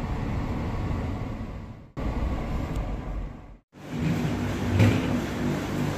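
Steady road and engine noise inside a moving car, broken by abrupt cuts; from a little past halfway, a steady low hum with several held low tones takes over.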